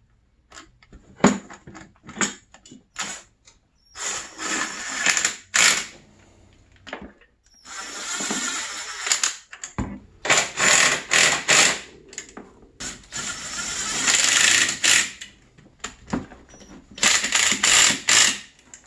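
A socket on an extension running a recoil-housing bolt, with its grounding-wire ring terminal, into a snowmobile engine. It comes as about five bursts of rapid clicking, each a second or two long, with short pauses between.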